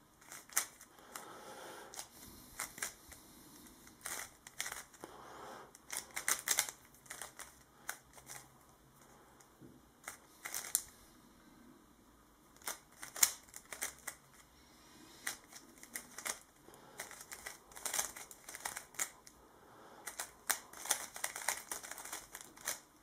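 Qiyi Valk3 Elite M magnetic 3x3 speed cube being solved by hand, its tensions loosened a quarter turn: irregular runs of quick plastic clicks and clacks as the layers are turned, with short pauses between them.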